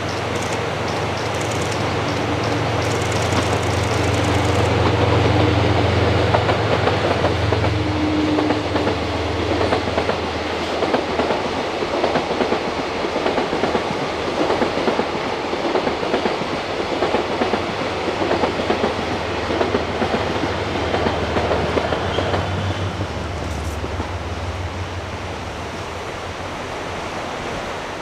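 A JR Freight DF200 diesel locomotive's engine hums low as it draws near. Then its long freight train passes, the wagons' wheels clattering steadily over the rail joints before easing off near the end. A steady rushing river sits underneath.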